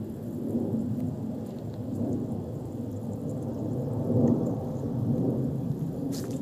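Low, rough rumbling noise that swells and fades, with a brief crackle near the end.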